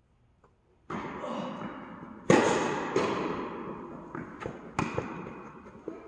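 Tennis ball struck by rackets and bouncing on the court during a rally, a series of sharp pops, the loudest about two seconds in, each ringing on in the echo of a large indoor tennis hall.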